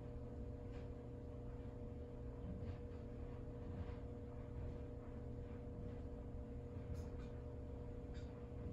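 Room tone: a steady low hum with a faint held tone, and a few faint soft clicks.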